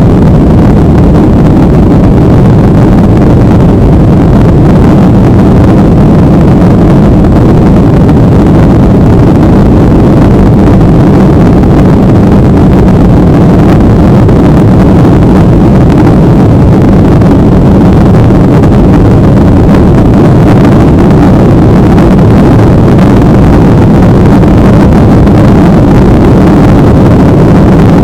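Loud, steady engine and airflow noise inside an airliner cabin, a deep, even rumble with no change in pitch.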